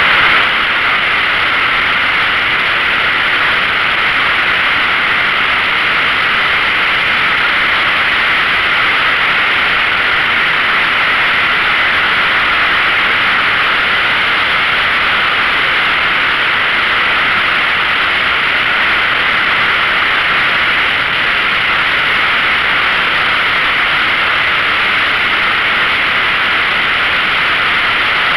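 Steady wind rush over the microphone of a camera on a motorcycle riding at road speed, loud and unchanging.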